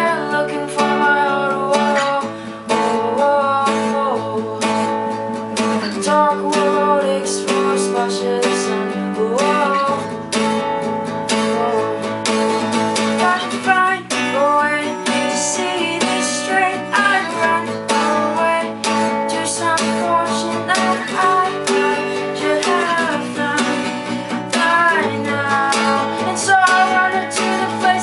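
A song cover: strummed acoustic guitar with a singing voice over it.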